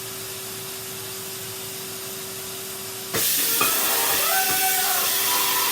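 A steady hiss with a faint low hum, which suddenly jumps louder and brighter about three seconds in.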